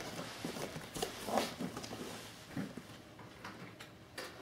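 Faint scattered light taps and knocks, about five over a few seconds, as a cat moves about and rummages among objects.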